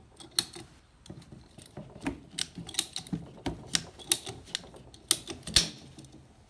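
Handheld PVC pipe cutter clicking again and again as its handles are squeezed, biting through 3/4-inch PVC pipe, about two sharp clicks a second; the loudest click comes near the end as the blade cuts through.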